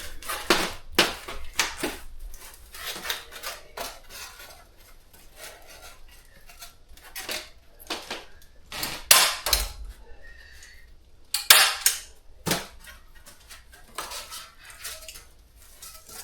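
Irregular knocks and light clattering, with a few sharper knocks a little past the middle.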